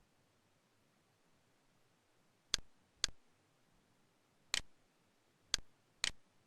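Mouse-click sound effect of Camtasia's cursor: five sharp clicks in quiet, a pair half a second apart about two and a half seconds in, a single click, then another pair.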